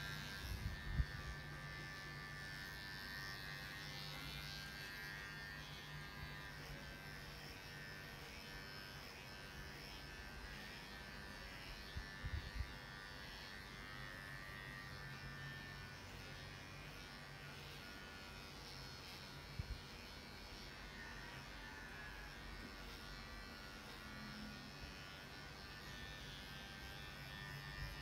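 Electric dog grooming clippers running with a steady buzz, with a few brief knocks along the way.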